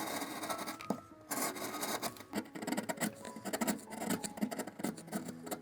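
A hand tool rasping against wood in quick repeated strokes, about three a second, with a short pause about a second in. Soft background music plays underneath.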